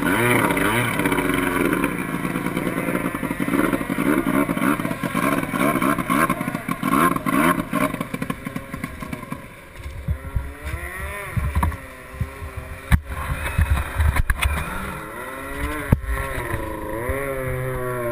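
Racing boat's outboard engine heard from on board, running hard with its pitch rising and falling, then backing off about nine seconds in to a lower, wavering drone at slow speed. A low rumble and a few sharp knocks come from the hull and water.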